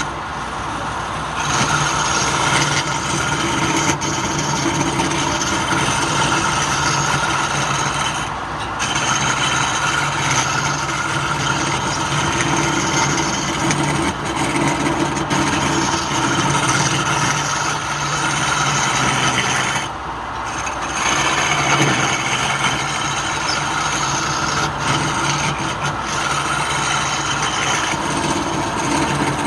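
Wood lathe running steadily with its motor humming, while the spinning wood is worked with a rough scraping sound. The scraping breaks off for about a second twice, near a third of the way in and again about two-thirds in.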